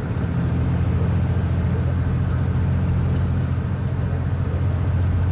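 Semi truck's diesel engine and road noise heard inside the cab, a steady low drone while cruising.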